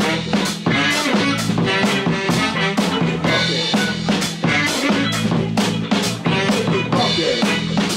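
Loud music with a steady drum-kit beat and bass line.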